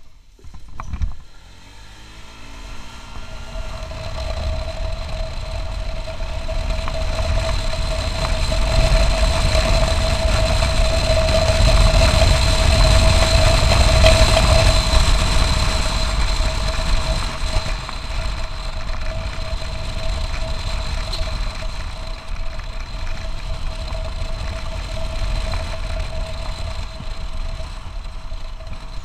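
Honda ADV 150 scooter's single-cylinder engine and CVT drive, fitted with an RS8 set and 15 g rollers, pulling the scooter up to speed: a steady drone that holds one pitch while it grows louder for about ten seconds, then eases a little, with wind rumbling on the microphone. A sharp knock about a second in.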